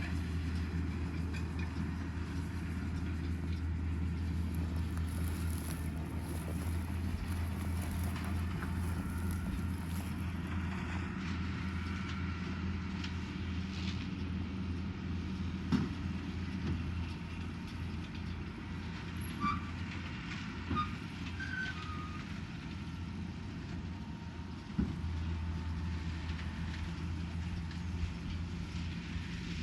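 Tractor working a Welger Lely RP220 Master round baler: a steady low engine hum, with a few sharp knocks.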